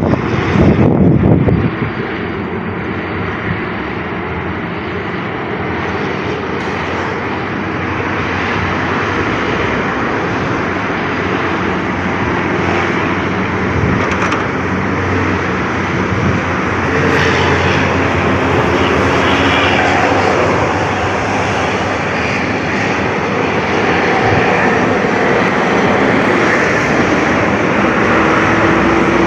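Heavy truck diesel engine running: a loud drone with steady pitched lines, louder for the first couple of seconds, then settling and slowly growing louder.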